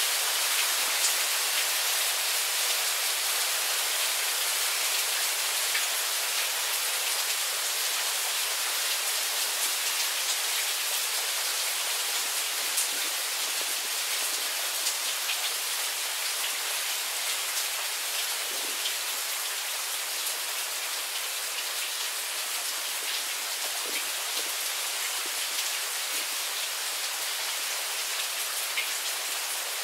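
Steady rain shower: a dense, even hiss of falling rain with scattered sharper drops ticking through it.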